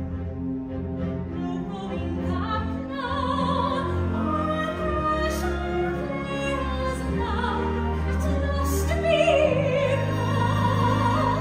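Operatic singing with wide vibrato over a pit orchestra's sustained strings, performed live in a theatre.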